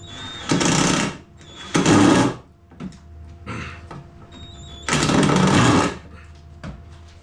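A power tool run in three short bursts of under a second each, with a weaker burst between them, over faint background music.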